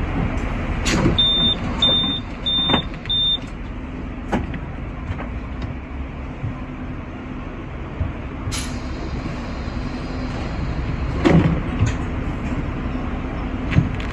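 Hong Kong sixth-generation teak-bodied tram standing at a stop: a steady low hum and rumble with scattered knocks and clicks. About a second in, four short high electronic beeps sound in a row.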